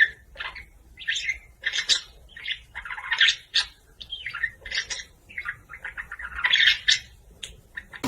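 A bird chirping and squawking in a run of short, quick calls.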